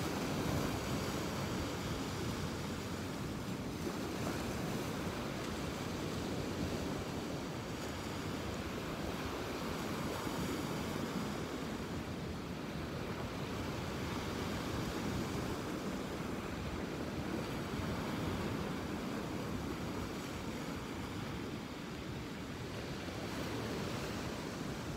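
Ocean surf washing onto a beach, a steady wash of breaking waves that swells and eases gently.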